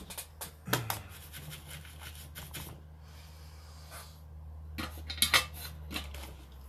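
Handling noise from small hard objects on a workbench: a string of clicks, taps and rubbing, loudest about a second in and again around five seconds in, over a low steady hum.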